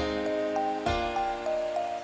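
Instrumental background music: a chord is struck at the start and another a little under a second in, held under a simple melody.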